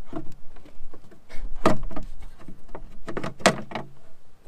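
Engine cowling of a 75 hp Mercury outboard being unlatched and lifted off: a series of clunks and knocks from the latches and the cover, the loudest about a second and a half in and again about three and a half seconds in.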